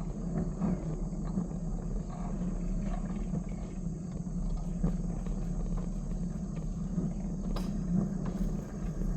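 Small train's engine running steadily with a low rumble, with a few faint clicks over it.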